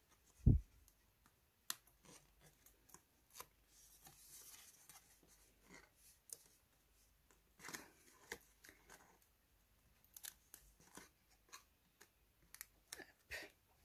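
Cardstock being folded and pressed down by hand as taped flaps are stuck in place: quiet, scattered paper clicks and rustles, with a dull thump about half a second in.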